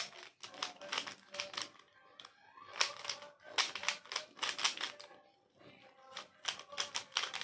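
Plastic 3x3 puzzle cube being turned quickly by hand: runs of fast clicking layer turns in bursts, with a short pause about five seconds in.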